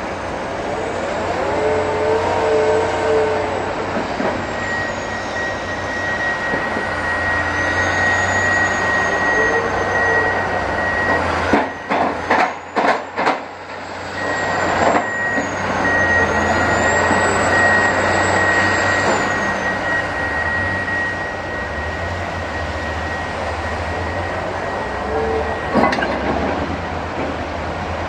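Diesel construction machinery at work: a wheeled excavator digging soil, with dump truck and loader engines running, under a steady high whine. About halfway through, the sound cuts out briefly several times.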